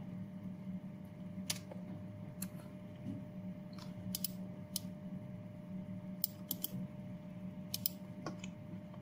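Scattered single clicks of a computer mouse and keyboard, about ten in all, over a steady low hum.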